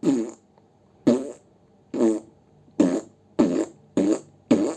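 Played-back comic sound effect: a run of short, squelchy, fart-like blips, each dropping in pitch. They come about once a second at first and speed up to about two a second, like cartoon footsteps.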